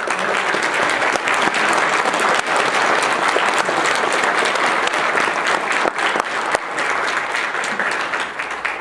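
Congregation applauding: dense, steady clapping from many hands that dies away near the end.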